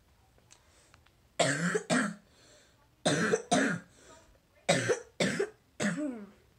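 A person coughing hard in three fits, two coughs, then two, then three, each cough short and sudden. The coughing comes from a chest illness.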